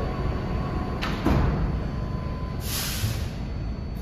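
R160 subway car's doors sliding shut, closing with a thump about a second in, then a short hiss near the end, over the train's steady hum as it stands at the platform.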